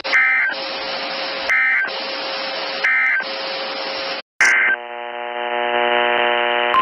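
Emergency Alert System end-of-message data bursts: three short warbling digital chirps about 1.3 s apart over steady radio hiss. After a brief dropout comes one more chirp, then a steady buzzing tone.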